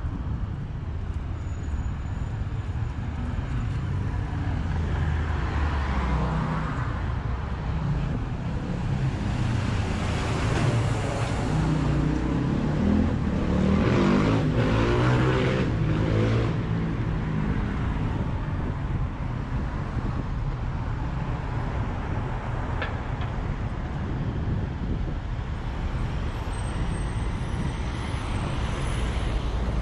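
City road traffic: cars running past on the street, with one vehicle passing close about halfway through, the loudest moment.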